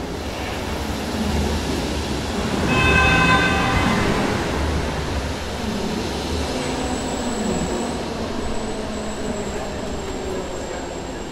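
A train running past with a steady rumble. About three seconds in comes a brief sound with several pitched tones at once, and from about six and a half seconds a thin high whine sets in.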